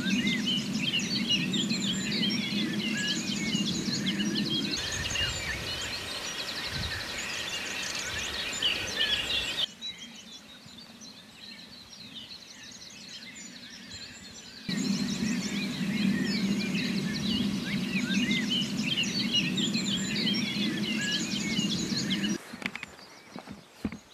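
Dawn chorus: many songbirds singing and chirping at once, in several stretches that cut in and out abruptly. In two of the stretches a steady low hum runs underneath the birdsong.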